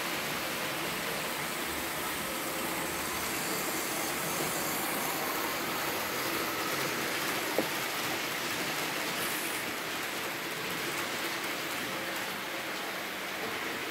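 Märklin model train running along the layout track, a steady even running noise, with one sharp click about seven and a half seconds in.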